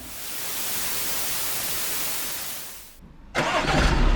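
A bright, even hiss fades out over the first three seconds, followed by a short gap. Then, about three and a half seconds in, an Audi A6 35 TDI's diesel engine is heard idling steadily, now running with a newly replaced flywheel.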